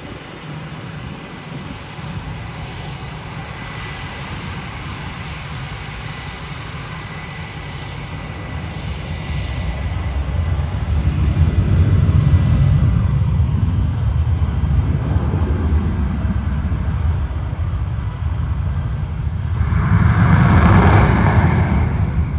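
Jet engines of Blue Angels F/A-18 Super Hornets running on the runway: a steady rumble and hiss that swells loudly about halfway through, eases, then swells again with a sharper hiss near the end.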